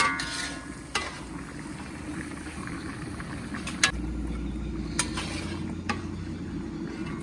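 Mutton pieces sizzling and frying in a large karahi while their water is cooked off, stirred with a long metal ladle that knocks and scrapes against the pan several times. A ringing metal clang opens the sound.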